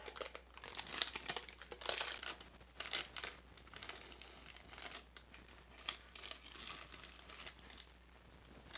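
Parchment paper crinkling and rustling in irregular bursts as a loaf is lifted out of its baking tin by the paper and the paper is peeled off the loaf's sides. The rustling is loudest over the first three seconds and fainter after that.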